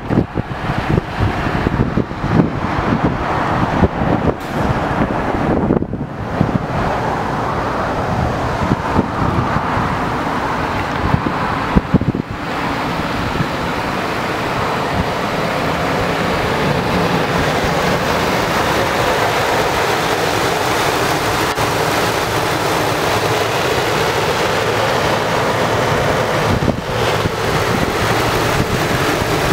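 Ford 5.4L Triton V8 running steadily at idle, with wind on the microphone. Scattered knocks and bumps in the first half.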